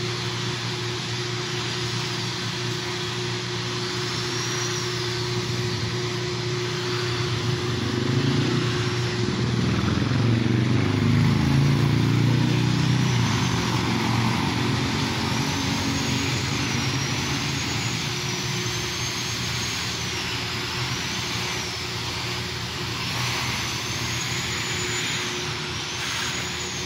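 Street traffic: a steady roar of vehicles over a constant low hum, with one vehicle passing louder about a third of the way in, its engine note falling as it goes by. Faint high rising-and-falling sounds repeat through the second half.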